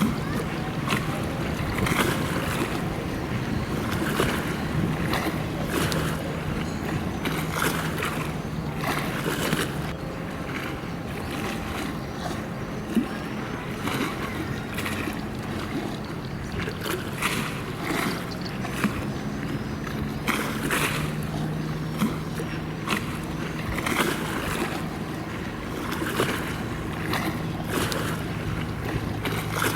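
Steady low drone of a ship's engine, with water washing and splashing in short surges about once a second.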